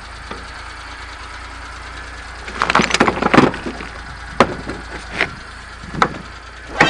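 Engine idling steadily under chunks of broken concrete clattering and knocking in a loaded mini truck's steel dump bed. A burst of clatter comes a little before halfway, then single sharp knocks follow about once a second.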